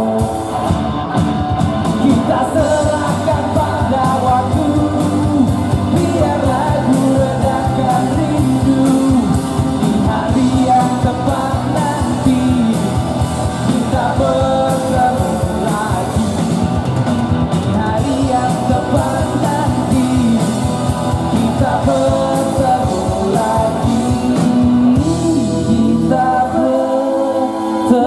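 Live pop-rock band playing: a sung lead melody over electric guitars, keyboard, bass and a steady drum beat. Near the end the bass and drums drop out, leaving the voices and higher instruments.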